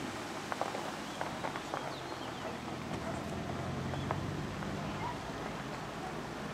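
Outdoor campsite ambience: a low engine hum in the background, scattered short clicks and faint bird chirps, with distant voices.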